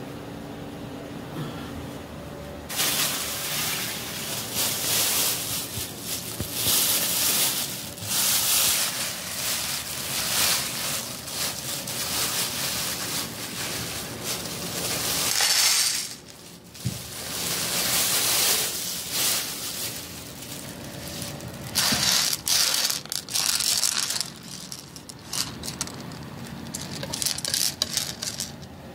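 A plastic bag rustling and dried red beans clattering as they are scooped out by hand and dropped onto a plate, in repeated bursts starting about three seconds in. Near the end the beans click and rattle as fingers spread them across the plate.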